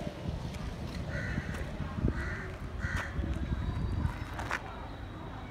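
A crow cawing three times in quick succession, short harsh calls about a second apart, over a steady low rumble on the microphone.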